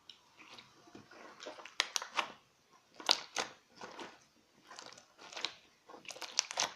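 Slime being squeezed and worked by hand, giving short runs of sticky popping and crackling about a second apart.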